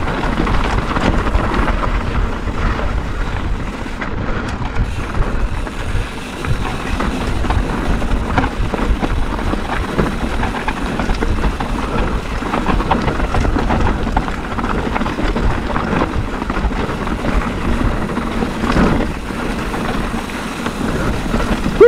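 Wind rushing over the microphone of a mountain bike descending a rocky dirt trail, with a steady low rumble of tyres on loose gravel and scattered clicks and rattles from the bike.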